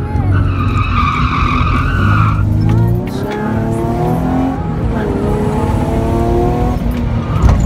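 Honda J32A2 3.2-litre V6 in a Mazda Miata, heard from inside the cabin on an autocross run. The tyres squeal for about two seconds, then the engine revs climb twice as the car accelerates. There is a sharp thump near the end.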